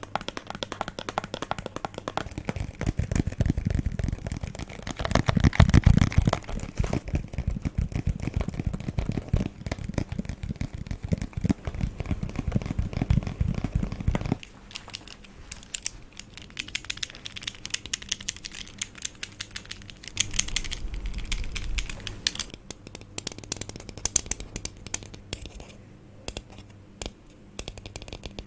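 Rapid ASMR tapping on objects, dense clicks in a quick irregular stream. Heavier taps with a low thud for about the first half, then lighter, crisper tapping.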